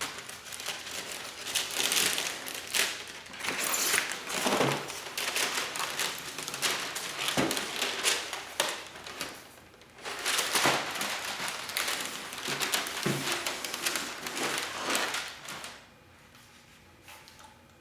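Packaging being handled and unpacked: crinkling and rustling with scattered clicks and knocks, stopping about sixteen seconds in.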